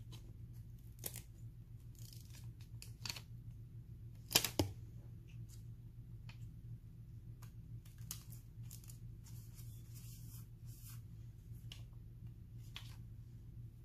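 A clear lace-heart sticker and paper being handled with tweezers: scattered light crackles, taps and rustles, the loudest about four and a half seconds in, with a longer rustle later on. A steady low hum runs underneath.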